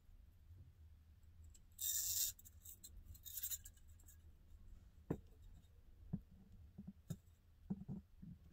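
A beaded necklace strand being untangled by hand: two short rasping rustles about two and three seconds in, then scattered light clicks of the beads knocking together.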